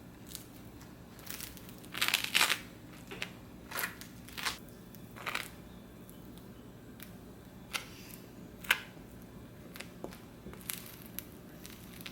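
Food-prep handling sounds: a burst of crinkling and scraping about two seconds in, then scattered light clicks and knocks, the sharpest near the end.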